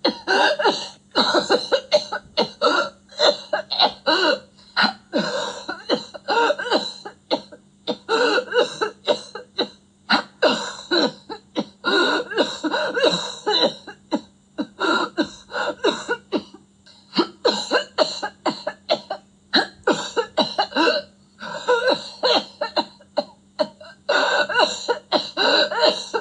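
A voice coughing in rapid, repeated fits, several coughs a second, broken every few seconds by brief pauses.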